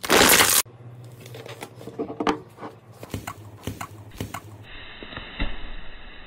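Slime being crushed and squeezed by hand. A loud crunching burst lasts about half a second at the very start. After it come quieter scattered clicks, crackles and small sticky pops as the slime is squished.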